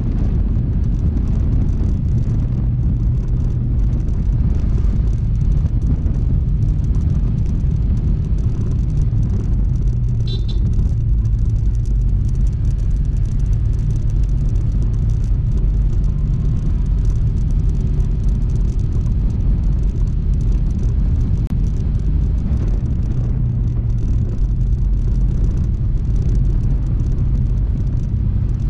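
Honda ADV160 scooter riding along: its single-cylinder engine runs steadily under a constant low road-and-wind rumble. A brief faint high beep sounds about ten seconds in.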